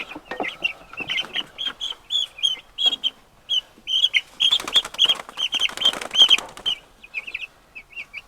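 Young meat chickens peeping over and over in short high chirps. In the middle there is a couple of seconds of wings flapping and scuffling as the birds are handled.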